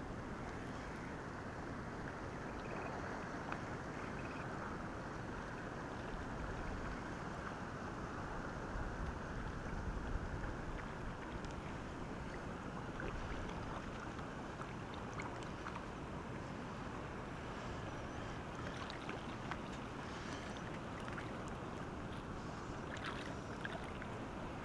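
Steady wind noise on the microphone over water lapping at the shoreline, with a few faint ticks in the last few seconds.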